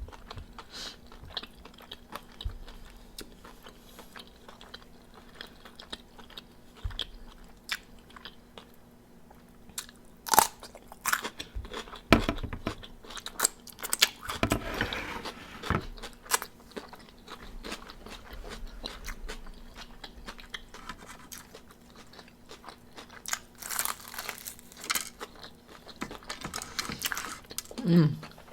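Close-up crunching and chewing as a person bites into crispy fried chicken wings: sharp crackles of the fried breading, with the loudest bites about ten and twelve seconds in.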